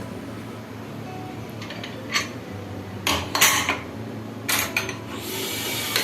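Metal pots and utensils clattering and clinking in a few separate knocks, over a steady low hum; a hissing noise starts about five seconds in.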